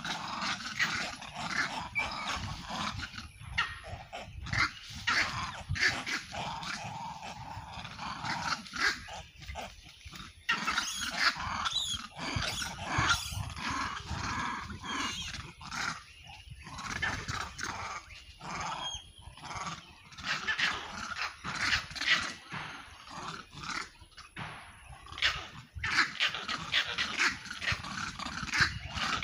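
Vervet monkeys squabbling, with rapid, harsh, irregular screeching and chattering calls, busiest at the start and again near the end.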